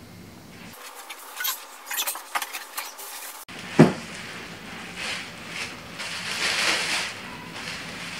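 Unpacking a cardboard bicycle box: crinkling plastic wrap and rustling cardboard as a plastic-wrapped bicycle frame is lifted out, with one loud knock just under four seconds in.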